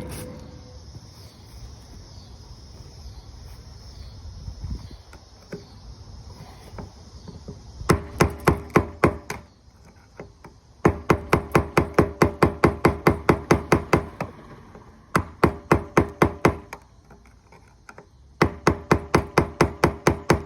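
Hammer blows on the rust-seized fuel pump retaining ring of a 2005 Dodge Ram 1500 fuel tank, struck to break it loose. After a quiet stretch come four runs of quick strikes, about six or seven a second, each with a short metallic ring.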